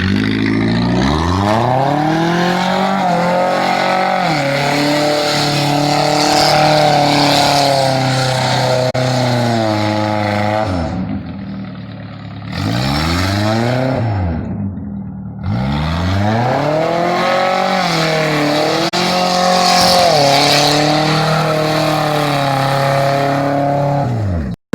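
Car engine revving again and again, its exhaust note climbing and falling back in pitch over and over, with two short drops toward idle near the middle.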